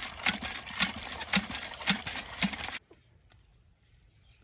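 Steady rhythmic knocking of food preparation, about two strikes a second over a hiss, cutting off abruptly about three seconds in.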